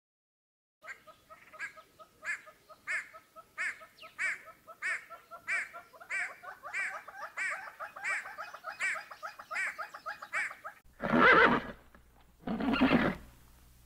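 Animal calls: a short call repeated about every two-thirds of a second for about ten seconds, then two louder, longer calls near the end.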